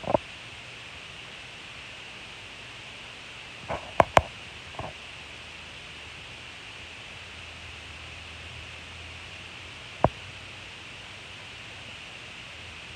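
Steady background hiss broken by a few sharp clicks or taps: two loud ones close together about four seconds in, and a single one around ten seconds.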